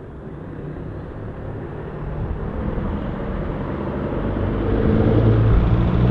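Volvo FH16 520's 16-litre straight-six diesel with an open exhaust pipe, pulling away and coming closer, growing steadily louder. The deep engine note strengthens about four and a half seconds in.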